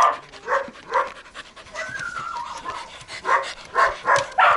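Dog panting in quick, rhythmic breaths close to the microphone, with a short whine that falls in pitch about two seconds in.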